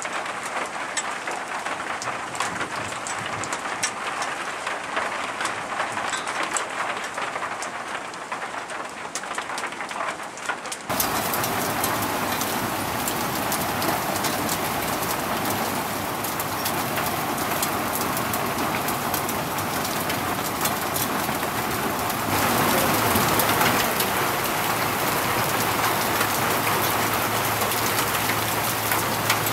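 Rain falling steadily, with many close drops ticking. About eleven seconds in the sound changes abruptly to a fuller, louder hiss of rain.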